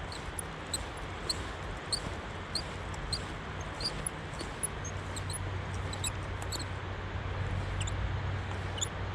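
Spinning reel being wound in, its dry, unoiled mechanism giving a short high squeak about every half-second over a steady hiss. A low hum grows in from about the middle.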